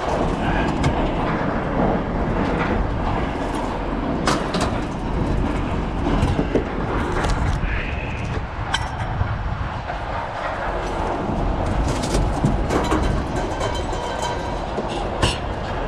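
Scrap metal being thrown off a truck onto a scrapyard pile: a steady mechanical rumble with scattered metal clanks and knocks throughout.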